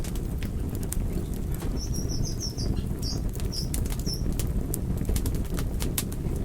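Wood fire burning in a fireplace: logs crackling and popping in quick irregular snaps over a steady low rumble of the flames. A run of short, high chirps sounds in the middle.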